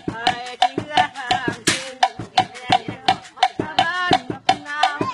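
Homemade drum kit played with sticks in a fast, even rhythm: hollow knocks on a wooden log drum and hits on plastic containers and a metal sheet, with a short metallic crash near two seconds in. A man's voice sings along between the strikes.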